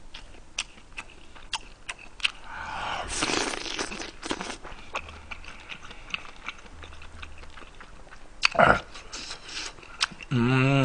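Close-miked chewing of a mouthful of kimchi stew, with many small wet mouth clicks and smacks. There is a longer noisy stretch about three seconds in, and a single sharp knock near the end.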